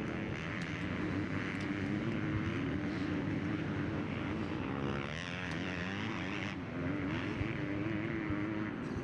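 Motocross bike engines running on the track, their pitch rising and falling as the riders work the throttle.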